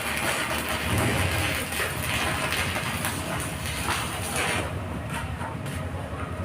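Electric arc welding: a steady crackling hiss from the arc that cuts off about four and a half seconds in, leaving a low hum.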